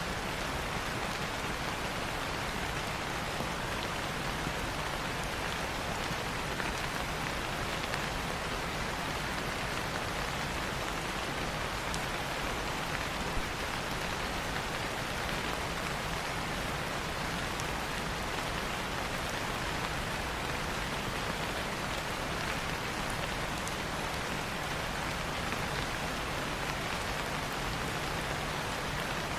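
Steady rain falling, an even hiss with a few faint clicks scattered through it.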